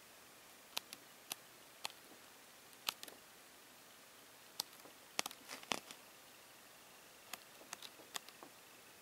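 Sheets of a scrapbooking paper pad being turned one after another: short crisp paper snaps and light rustles at irregular intervals, a small cluster of them just after the middle.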